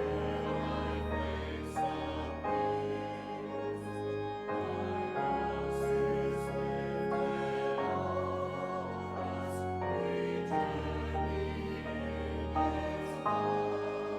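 Congregation singing a hymn with organ accompaniment, the low bass notes changing every second or two.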